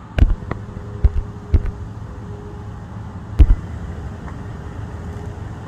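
Steady low engine drone of a towboat pushing a river barge, with a faint steady hum over it. Several sharp knocks break it in the first two seconds, and a louder pair comes about three and a half seconds in.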